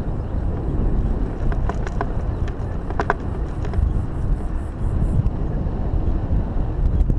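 Mountain bike riding over a dirt singletrack, heard from a camera mounted on the bike: a steady low rumble of wind on the microphone and tyres on the dirt, with clicks and rattles from the bike over bumps. There is a short squeak about three seconds in, and the clicking grows denser near the end.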